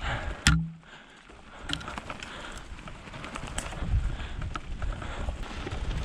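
Mountain bike rolling over a rough dirt trail: continuous low tyre rumble and rattling clicks, after one sharp knock about half a second in.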